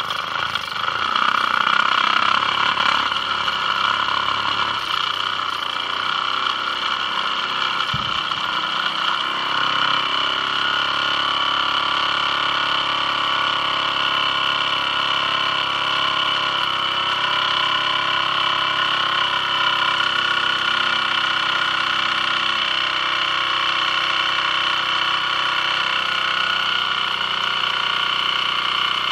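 Small toy live-steam engine running under its own steam, coming up to speed over the first second or two and then running steadily with a high, even whirring hiss.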